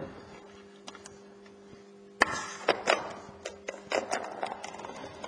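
Sealing film on a Berkley Gulp! Alive bait jar being pierced and torn open at the rim: a sudden crackle about two seconds in, then a run of sharp clicks and crinkles.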